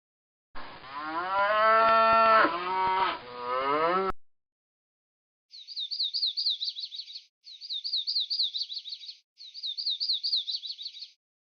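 A cow mooing once, a long call that drops in pitch at the end, followed after a pause by three identical bursts of a high, rapid chirping trill.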